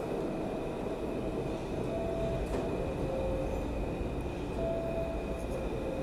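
New York City subway train rumbling through an underground station, with a few short squealing tones from the wheels over the rumble.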